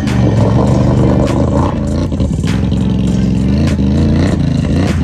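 ATV engine revving hard, its pitch wavering up and down, as the quad churns through deep mud.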